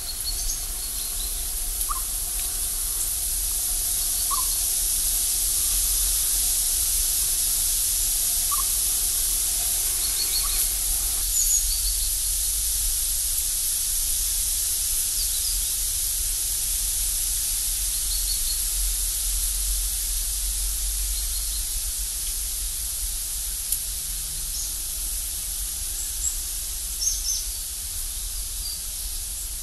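Siberian chipmunk giving short single chirps every couple of seconds over a steady high hiss of outdoor ambience. After a cut about eleven seconds in, only the steady hiss remains, with faint short high chirps now and then.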